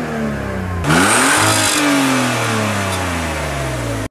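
Car engine revving with no load: the revs fall away, then a sharp blip about a second in comes with a brief burst of hiss, and the pitch sinks slowly as the revs drop back.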